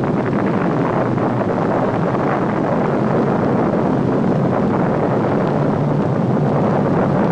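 Rocket engines firing at liftoff: a steady, loud rumbling rush of exhaust noise with no tone in it.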